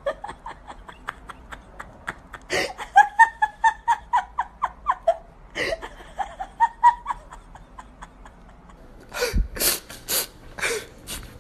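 A person laughing in quick breathy bursts that rise into runs of short, high-pitched laughs a few seconds in and again briefly later. Near the end there are several sharp, noisy bursts.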